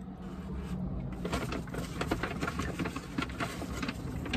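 About three seconds of dense crackling and rustling from food being handled and eaten, over a low steady hum.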